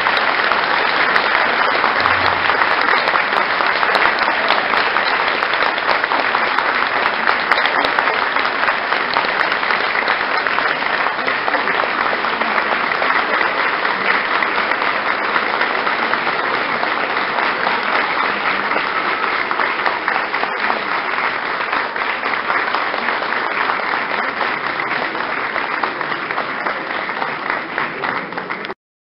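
Audience applauding, steady sustained clapping that cuts off suddenly near the end.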